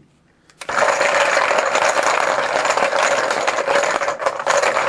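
Small hard objects rattling continuously as they are shaken in a container, starting about half a second in.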